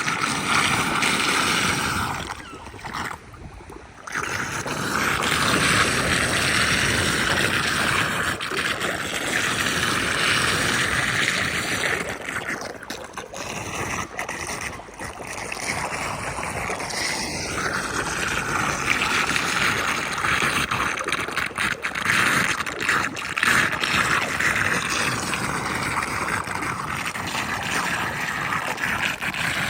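Floodwater rushing and gurgling into a street drain, a steady loud rush of water that drops away briefly twice.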